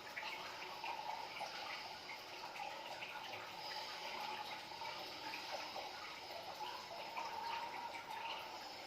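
Water trickling and splashing steadily, with many small drips and ticks.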